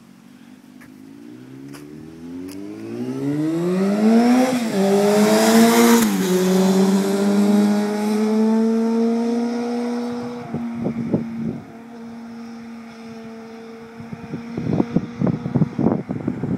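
Sport motorcycle engine accelerating past, its note climbing steadily, dropping sharply twice about four and a half and six seconds in, then holding a steady note as it rides away. Wind buffets the microphone in bursts near the end.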